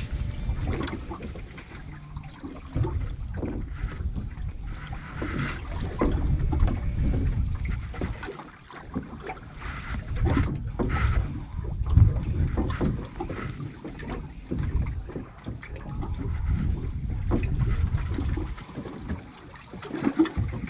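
Wind buffeting the microphone and waves slapping against a small fishing boat's hull, swelling and easing in gusts, with a few sharp knocks; the loudest comes about twelve seconds in.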